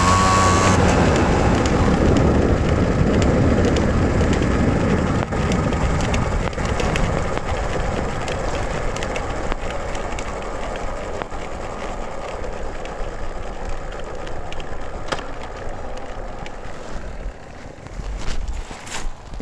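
Simson S51's 50 cc single-cylinder two-stroke engine note cuts out about a second in, leaving the moped's tyre and wind rolling noise, which fades slowly as it coasts down. A few sharp knocks come near the end.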